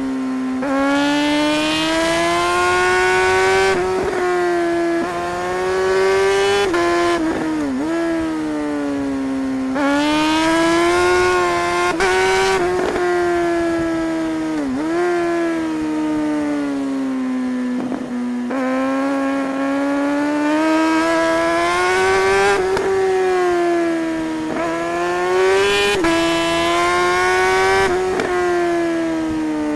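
Suzuki GSR 600's inline-four engine under way, its note rising and falling with the throttle, with repeated sudden drops in pitch as the rider shifts gears.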